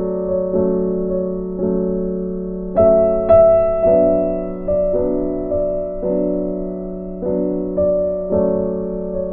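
Soft solo piano background music: sustained chords struck about once a second, each fading away, with a brighter high note about three seconds in.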